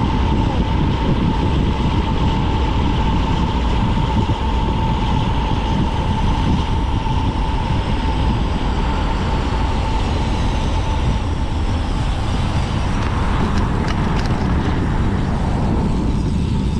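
Wind buffeting the microphone of a handlebar-mounted camera on a road bike descending at speed, with tyre noise on asphalt. A steady high whine runs under it and fades out as the bike slows near the end.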